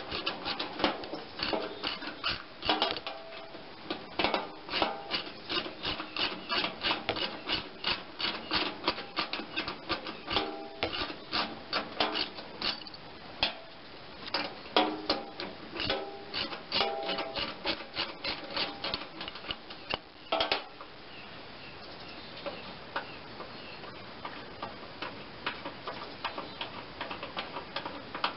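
Socket ratchet clicking in quick runs as a bolt is backed out. The loud clicking stops about two-thirds of the way through, and fainter ticking carries on.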